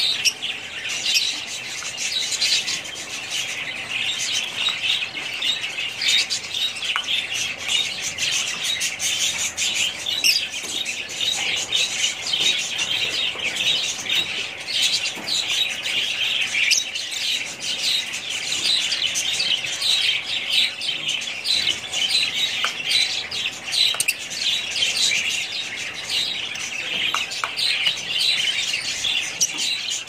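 Fischer's lovebirds chirping and chattering non-stop, a dense stream of short, shrill high-pitched calls.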